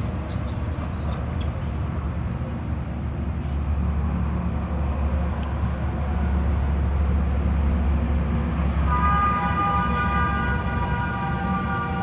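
Steady low rumble of a moving vehicle, with a horn starting about nine seconds in and holding steadily.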